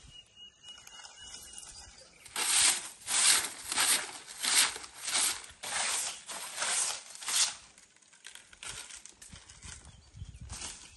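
Bundle-of-dry-stalks broom sweeping in quick, even strokes, about nine loud swishes in five seconds, then a few lighter strokes near the end.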